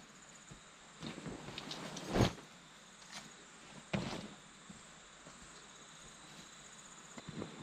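Scattered knocks and rustling from objects being handled, with two louder thuds about two and four seconds in.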